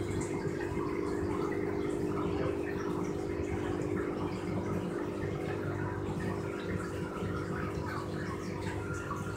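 Running aquarium: water trickling and bubbling over a steady low hum.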